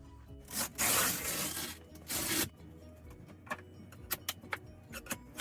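Soft background music under three brief scraping swishes, followed by a scatter of light clicks and knocks.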